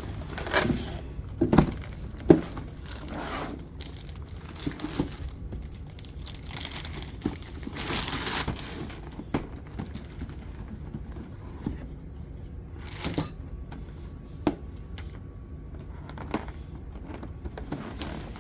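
A model train engine's packaging being handled and opened by hand: irregular rustling and crinkling with scattered knocks and taps, and a longer rustle about eight seconds in.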